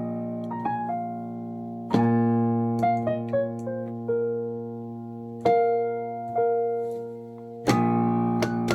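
Piano playing struck chords that ring and fade, with short melody notes stepping downward between them. Near the end the notes come quickly in a falling run.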